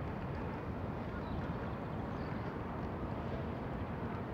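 Steady low rumbling outdoor background noise.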